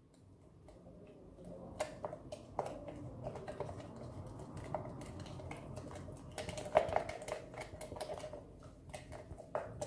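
Pink slime being stirred in a small plastic pot just after the activator went in, as it thickens into slime: irregular small clicks and taps of the stirring against the pot, over a soft rustle.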